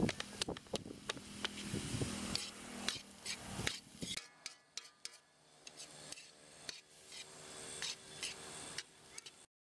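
Steel spatula stirring and scraping ridge gourd and scrambled egg in an iron kadai, with repeated clicks and scrapes against the pan over a soft sizzle. It gets quieter about four seconds in and cuts off abruptly near the end.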